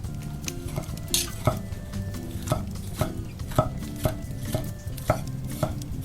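Knife chopping food on a cutting board in a steady rhythm, about two strokes a second, each stroke a sharp knock with a brief ring.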